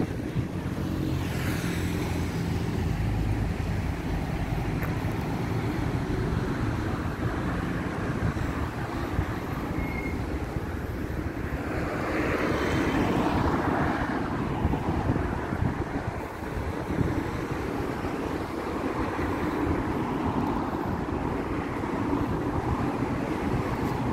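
Street traffic: a vehicle engine running with a steady low drone for the first several seconds, then another vehicle passing by about halfway through.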